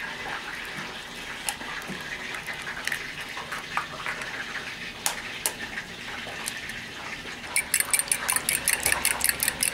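Eggs being cracked into a glass bowl: scattered light taps and clicks of shell on glass. Near the end a fork starts beating the eggs, clicking quickly and evenly against the side of the glass bowl, about seven strokes a second.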